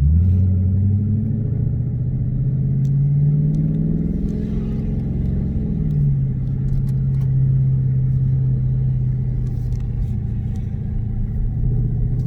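Dodge Challenger R/T's 5.7-litre Hemi V8 with its mid muffler deleted, accelerating hard: the exhaust note jumps up loudly at once and climbs in pitch, drops at an upshift about six seconds in, then runs steadily.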